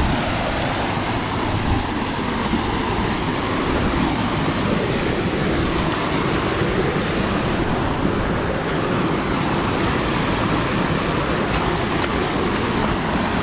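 White water rushing over a rock ledge in a river rapid close by, a steady, unbroken rush of water.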